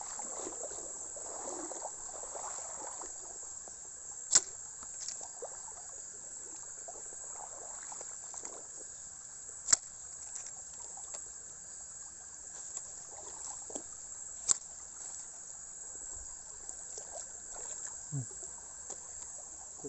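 Steady high-pitched chirring of night insects such as crickets, over the soft trickle of a shallow rocky stream. Three sharp clicks come about five seconds apart.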